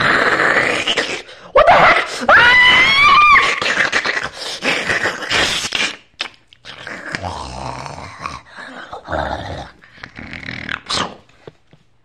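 A person growling and snarling in imitation of a wild animal, with a high, wavering screech about two seconds in, then quieter growls.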